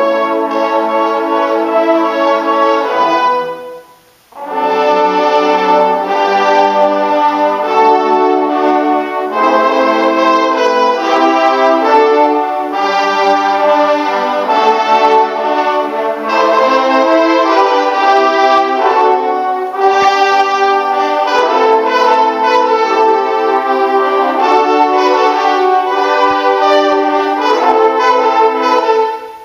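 A large brass ensemble of trumpets, mellophones and trombones plays loud, held chords. The whole band cuts off together about three and a half seconds in and comes back in under a second later.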